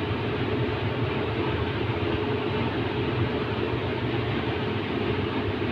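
Steady machinery drone with an even hiss, from compressed-air plant equipment running beside a twin-tower desiccant air dryer.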